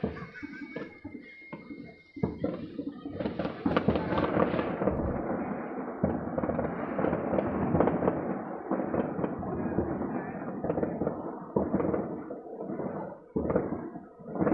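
Fireworks and firecrackers going off around the city: scattered bangs with a thin whistle in the first two seconds, then a dense, continuous crackle of many explosions.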